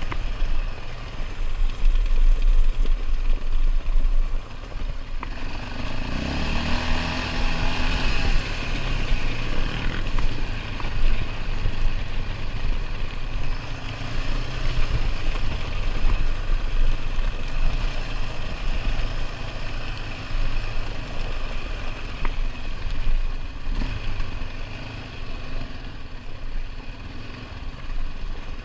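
ATV engine running while being ridden, its pitch rising briefly about six seconds in as it speeds up, over a steady low rumble.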